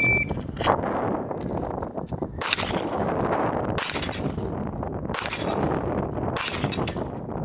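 A shot timer beeps once, then a 9mm Glock 45 pistol fires single deliberate shots, about five, spaced a little over a second apart.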